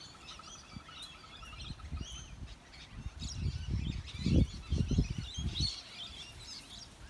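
A flock of parrots chattering, many high chirps and squawks overlapping, with a fast run of ticking notes in the first two seconds. A few low thumps and rumble on the microphone, loudest about four to five seconds in.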